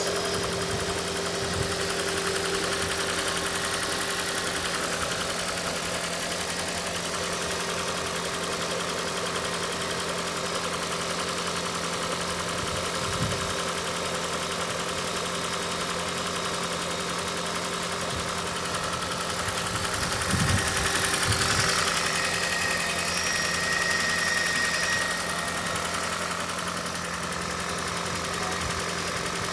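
Toyota Prius 2ZR-FXE 1.8-litre four-cylinder engine running steadily during an oil pressure test for a knocking problem. It gets a little louder for a few seconds about twenty seconds in.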